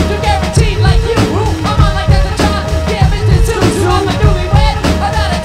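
Music with a singing voice over a steady drum beat and bass.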